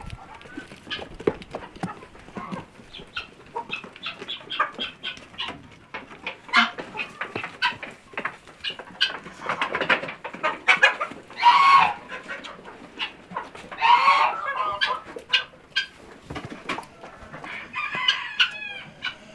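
Chickens clucking in the background, with two loud rooster crows a couple of seconds apart a little past the middle and a quick run of short calls near the end.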